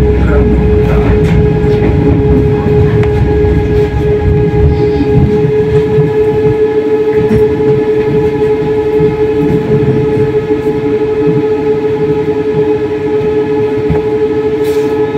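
Moderus Beta MF20AC tram in motion: a steady, unchanging whine from its electrical equipment over a low rumble of the running gear, with a few clicks from the wheels on the track.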